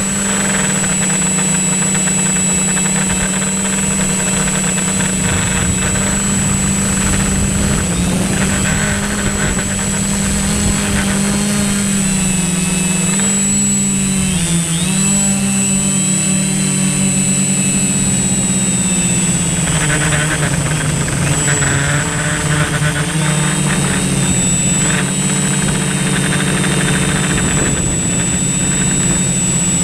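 Quadcopter drone's electric motors and propellers buzzing steadily, heard up close from the camera on board. The pitch wavers and dips briefly about halfway through.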